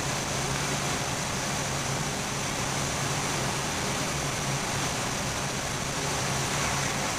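Steady cockpit noise of an Airbus A320 in flight on approach: an even rush of airflow and air conditioning with a low steady hum beneath it.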